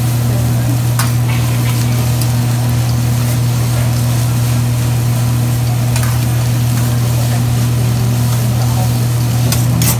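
Fried rice sizzling on a hot steel hibachi griddle as it is stirred with a metal spatula, with a few sharp clicks of the spatula on the steel, about a second in, around six seconds in and near the end. A steady low hum runs underneath and is the loudest sound.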